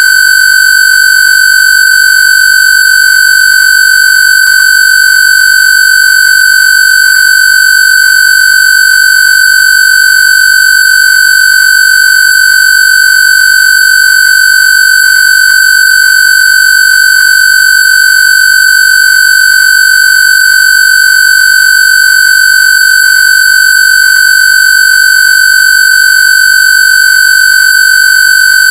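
Loud electronic square-wave tone held at one steady high pitch without any change: a Rife/AWG 'frequency therapy' tone meant for shingles.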